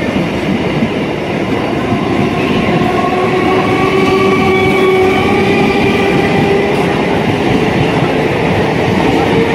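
Eastern Railway EMU local train moving alongside the platform, its traction motors giving a whine that slowly rises in pitch as it gathers speed, over the rumble of wheels on the rails.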